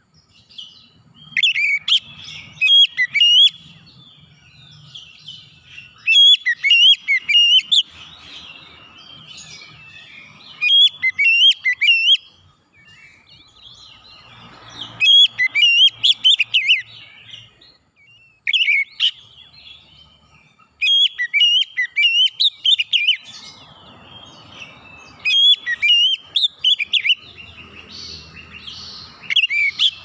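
Oriental magpie-robin singing: loud phrases of quick, varied whistles and chirps, each lasting one to two seconds, repeated every few seconds with short pauses between.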